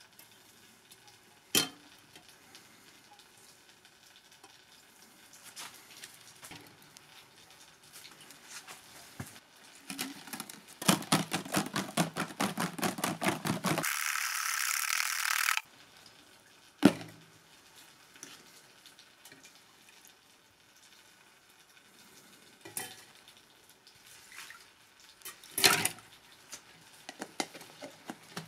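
A metal fuel tap dropped into a metal tin and then shaken inside it, rattling rapidly against the tin for a few seconds, followed by a short hiss. Then scattered knocks as the tin is handled and set down, and clicks as a plastic lid is pressed on near the end.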